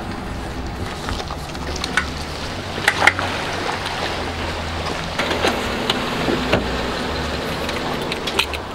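An engine running steadily at a low idle, with scattered clicks and knocks over it.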